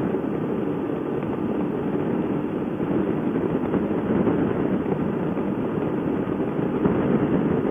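Steady rush of riding wind buffeting the microphone together with the engine and road noise of a Honda motorcycle cruising at speed on an open road.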